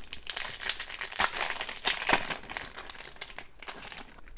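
Foil wrapper of a hockey trading-card pack crinkling and crackling as it is crumpled open and pulled off the stack of cards. The crackle is densest in the first three seconds and thins out near the end.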